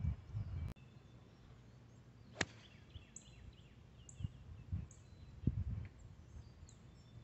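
Low wind rumble on the microphone that cuts off suddenly under a second in, then about two and a half seconds in the single sharp click of a 6-iron striking a golf ball. Birds chirp repeatedly afterwards, with a few low thumps.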